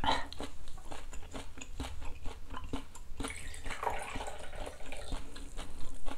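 Mouth sounds of chewing food, then soju pouring from a glass bottle into a shot glass, a trickling hiss from about three to four and a half seconds in.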